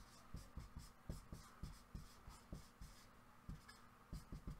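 Dry-erase marker writing on a whiteboard: faint, irregular taps and scratches, a few each second, as the letters are drawn.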